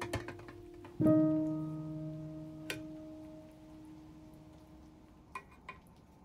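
Soft background piano music: a chord struck about a second in rings out and slowly dies away, with a couple of light clicks near the end.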